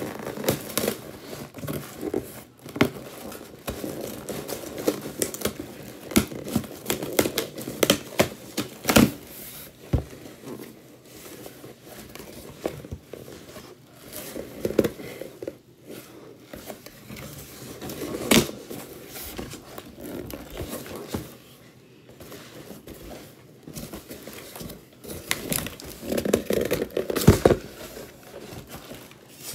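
Packing tape being torn off a cardboard shipping box, then cardboard flaps and plastic packaging rustling and crinkling as the box is opened, with irregular scrapes, clicks and a few sharp knocks.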